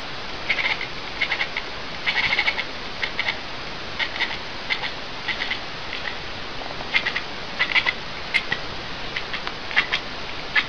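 An animal chittering in short bursts of quick, high chirps, a few pulses per burst, repeating every second or so over a steady hiss.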